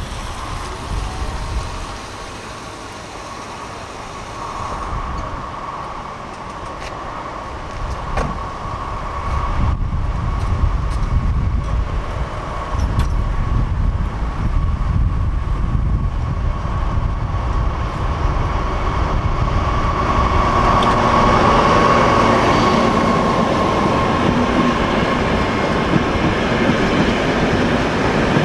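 DB class 601 TEE diesel multiple unit approaching and running past close by, growing steadily louder over about twenty seconds. A steady high whine runs with it, loudest just before the coaches pass.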